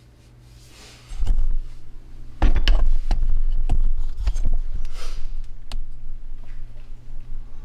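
Handling noise as the camera is picked up and repositioned: a low thump about a second in, then a string of sharp clicks and knocks with rubbing rumble from about two and a half seconds in.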